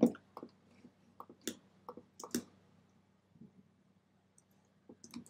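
Scattered, irregular computer clicks, about ten short faint ones, made while editing a design on screen.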